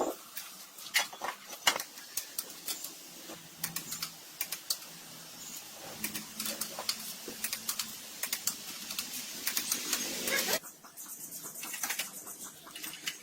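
Hand work on engine parts: many sharp metallic clicks and clinks of tools and parts, irregular, over a steady hiss that cuts off suddenly about ten and a half seconds in.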